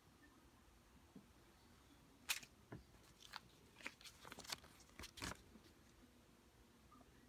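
Paper peso banknotes being handled and swapped, giving a cluster of short, crisp crackles and rustles between about two and five and a half seconds in, the sharpest one first.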